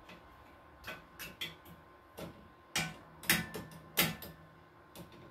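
About eight irregular knocks and clinks of metal, the loudest near the middle, several followed by a brief metallic ring.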